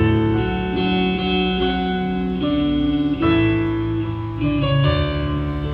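Country band music: a guitar-led instrumental passage between sung lines of a Christmas song.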